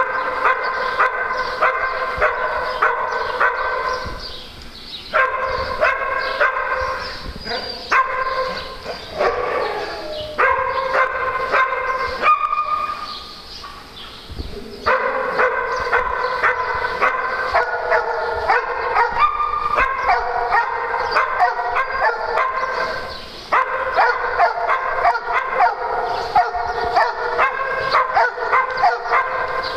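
A small dog barking over and over in quick, high-pitched yapping barks, about two a second, with two short breaks.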